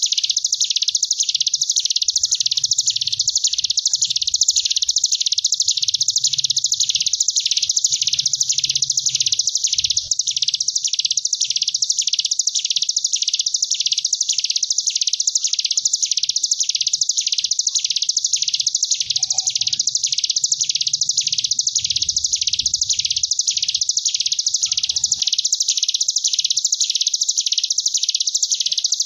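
Ciblek gunung (hill prinia) giving its continuous 'ngebren' song: a high, unbroken buzzing trill that swells and dips in regular waves, wasp-like.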